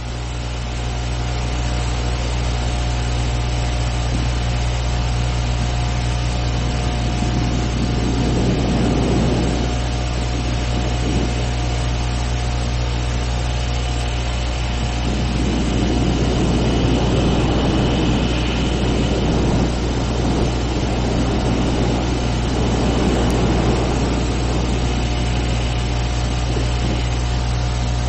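A steady low rumbling drone that fades in from silence, like heavy machinery running, swelling twice with rushing rumble midway and later.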